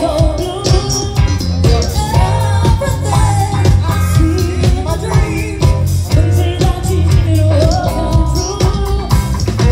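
Live pop-funk band amplified through a stage PA: a female lead singer over drum kit, bass guitar, electric guitar and keyboards, with a steady beat.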